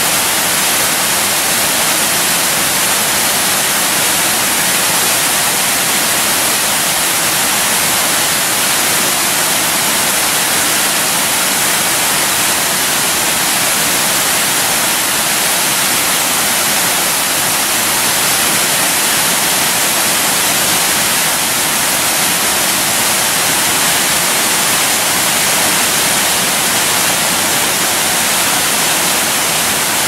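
Waterfall: the steady, loud rush of water pouring down tiered cascades, a hissing roar that stays even throughout.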